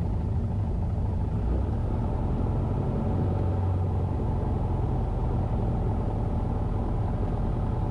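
Cessna 150's Continental O-200 four-cylinder engine and propeller running steadily at idle, heard from inside the cabin during the landing rollout.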